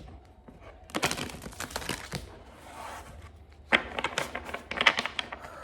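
A deck of tarot cards being shuffled by hand: two bursts of quick card flicks and rustling, with a softer shuffle between them.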